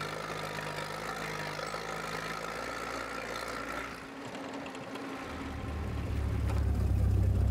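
WWII-era jeep engine running steadily as the jeep drives along a dirt track. A louder, deep rumble builds over the last two seconds.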